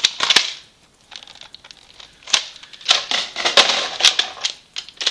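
Hard plastic clicks and rattles from handling a Nerf Modulus Recon Mk II blaster and a Rapid Strike 18-round magazine that will not lock into its magazine well. Two sharp clicks open it, then a busy run of clicking and rattling starts about two seconds in.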